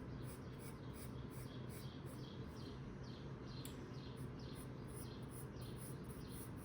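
Faint graphite pencil strokes scratching on sketchbook paper, short quick strokes repeating evenly at about three a second, over a low steady hum.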